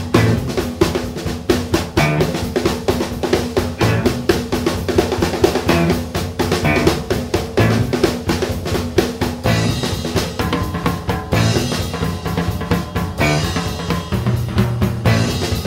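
Music with a steady drum beat: drum kit with bass and snare over a bass line.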